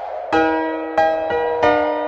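Background music of slow keyboard notes, a new note struck about every two-thirds of a second and left to ring.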